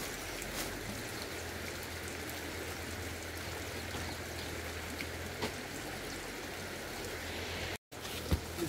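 Steady rush of running water, with a few faint clicks; the sound cuts out for an instant near the end.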